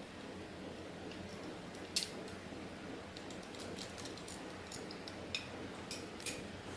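Irregular light clicks and metallic clinks of small tools and parts being handled during a repair, one louder click about two seconds in and a run of them through the middle, over a steady low hum.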